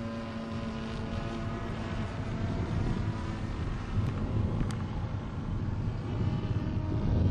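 Radio-controlled Yak 54 model aeroplane's engine and propeller running steadily as it flies overhead. Wind buffets the microphone, getting louder toward the end.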